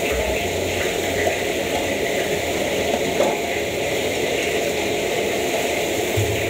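Large wok of hot oil deep-frying food: a steady bubbling hiss, with the gas wok burner running under it.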